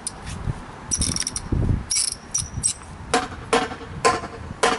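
Old steering stabilizer shock, bent and binding, being worked by hand. It gives a string of short creaks and squeaks: high squeaks in the first half, then sharper creaks about once every half second near the end.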